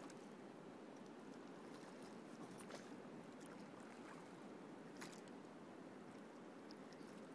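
Faint, quiet water sounds of oars working a rowing raft on calm river water, with a few light clicks about two and a half and five seconds in.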